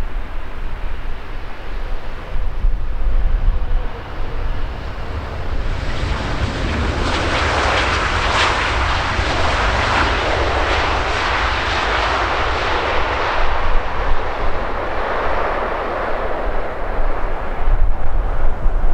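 Long-haul jet airliner on final approach passing close by, its engine noise building to a peak and then fading away.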